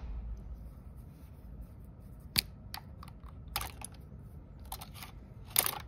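Scattered sharp plastic clicks as a nylon cable tie on the 3D printer's carriage is worked with side cutters, and near the end one loud snap as the cutters snip through the tie.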